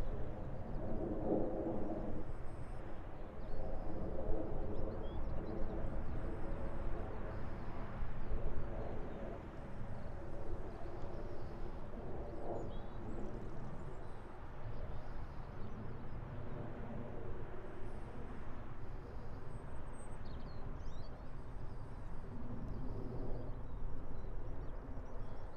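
Outdoor ambience: a steady low rumble with a distant engine hum that swells and fades, and small birds chirping now and then.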